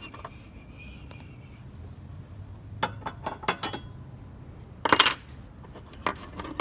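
Metal hand tools clinking: a few sharp clinks of wrenches against metal, with a louder clank about five seconds in.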